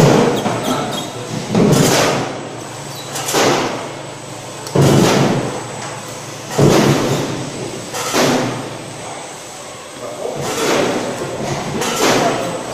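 Automatic sticker-labeling machine cycling: a sudden mechanical clunk repeating about every one and a half to two seconds, about eight strokes in all.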